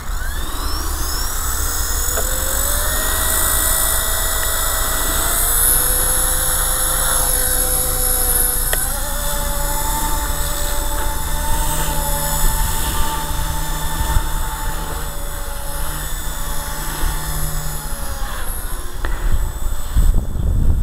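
Walkera 4G6 electric micro RC helicopter spooling up, a whine rising in pitch over the first few seconds, then running at flying speed with the whine stepping up and shifting slightly in pitch as it manoeuvres.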